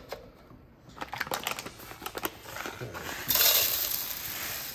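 Dry paydirt poured from a bag onto a mesh classifier screen set in a plastic gold pan: a steady hiss of gravel and sand pouring starts about three seconds in. Before it, a few light clicks and knocks as the classifier is set into the pan.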